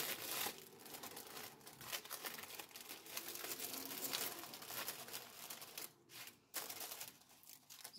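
Clear plastic packaging crinkling and crackling as hands handle a bag of small bagged acrylic diamond-painting drills and take the little bags out, with brief pauses about six seconds in.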